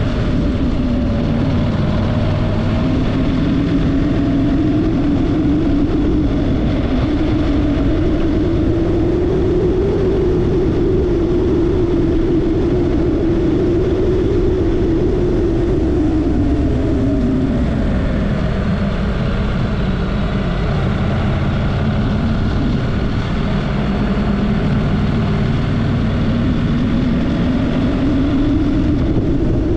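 Honda parallel-twin motorcycle engine running on the road, its pitch climbing over the first several seconds, holding, dropping about two-thirds of the way through, then climbing again near the end, over a steady low rushing noise.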